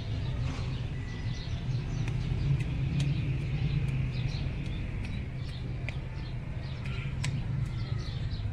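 Outdoor ambience: a steady low rumble, like distant traffic, with small birds chirping in many short calls throughout and a few light clicks.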